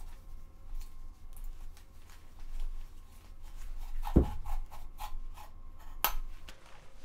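30-pound fishing line sawing back and forth through the adhesive mounting pad under a Strymon effects pedal, a rubbing, rasping sound with scattered small clicks. A dull thump about four seconds in and a sharp click about six seconds in.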